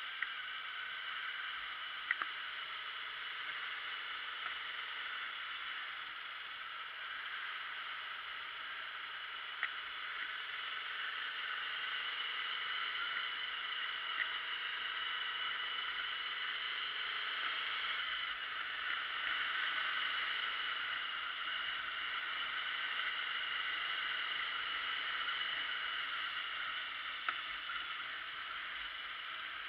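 Steady wind and road noise from riding a motorbike, with a faint engine hum that wavers slightly with speed. A few brief clicks break through it.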